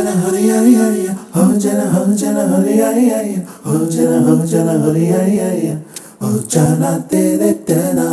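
A song on the soundtrack, a voice singing with little or no accompaniment, in phrases with short breaks between them.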